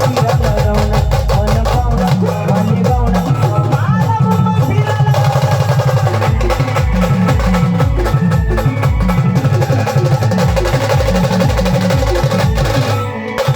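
Marathi brass band playing: a sustained melody over fast, dense drumming. Both drop out briefly near the end.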